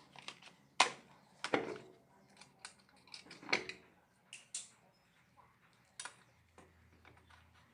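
Metal tools and parts clinking and knocking during shock absorber work: a handful of sharp, separate metallic knocks, the loudest about a second in.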